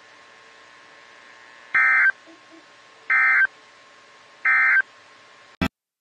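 Emergency Alert System SAME end-of-message data bursts: three short, identical digital screeches a little over a second apart, marking the end of a National Weather Service severe thunderstorm warning. A short click near the end as the audio cuts out.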